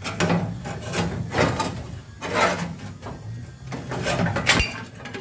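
Metal scraping and clunking as a Jeep CJ5's foot pedal is worked off its pivot shaft, in a series of irregular scrapes with one sharp knock about four and a half seconds in.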